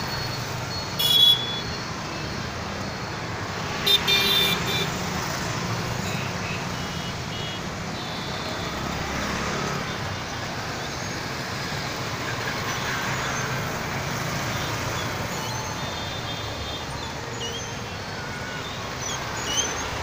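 Steady road traffic noise with vehicle horns tooting: one short toot about a second in and a louder burst of toots around four seconds in.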